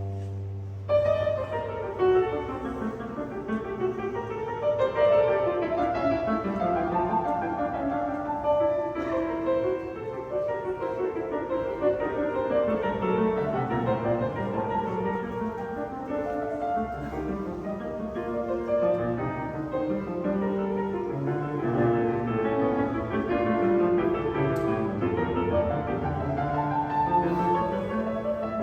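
Piano trio music: the piano plays a flowing stream of broken-chord figures, with bowed strings beneath.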